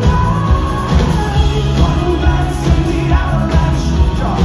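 Rock band playing live: a lead singer over a steady drum beat, guitars and keyboards.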